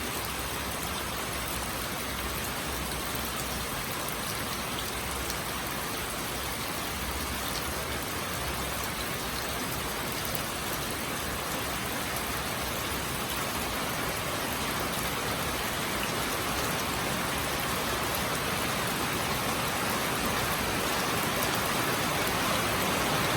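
Steady rainfall, an even hiss with faint scattered drop ticks, slowly growing louder.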